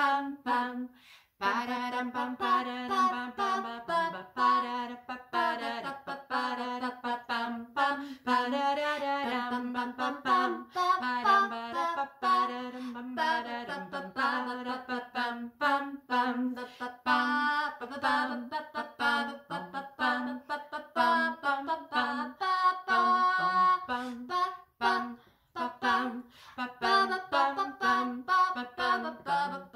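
Women's voices singing a wordless minor-key melody without accompaniment, with a steady low note held beneath the tune and short breaks between phrases.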